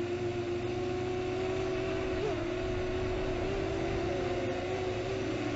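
ZMR250 quadcopter's Cobra 2208 2000kv brushless motors and propellers running with a steady high hum, with a brief jump in pitch a little over two seconds in and small shifts in pitch later. The blip is one of the short hiccups the quad has recently developed, whose cause the owner has not found.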